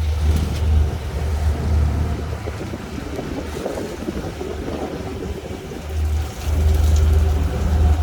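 Boat engine running with a steady low drone, over water and wind noise; the drone fades for a few seconds mid-way, then comes back strongly about six and a half seconds in.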